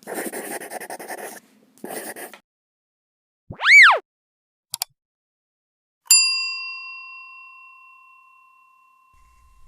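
A string of sound effects: two short bursts of hiss, a quick whistle that rises and falls, two clicks, then a single bell-like ding about six seconds in that rings out for about three seconds.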